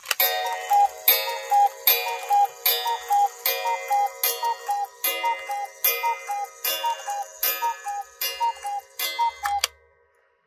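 Black Forest mechanical cuckoo clock (Engstler one-day chalet clock) calling the hour: the bellows-and-pipe cuckoo sounds its two-note call, a higher note then a lower one, about twelve times in a steady rhythm, with a wooden clack on each call. It stops about three-quarters of the way through.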